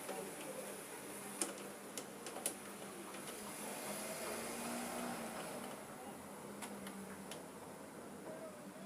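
A few sharp clicks and taps of metal hardware being handled while battery terminals are connected, about three close together in the first few seconds and two more later, over a faint steady hum.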